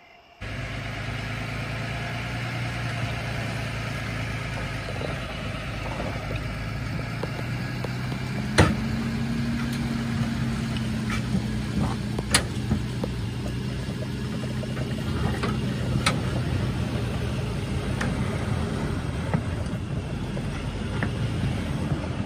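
Vehicle engine idling steadily, with a few sharp knocks, the loudest about nine seconds in.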